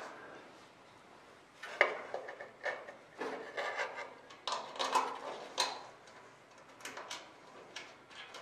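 Flap torque tube being pushed through the wing-rib holes and bearing supports by hand: scraping and light metal knocks and clicks, bunched from about two seconds in to about six seconds in, with a few lighter clicks near the end.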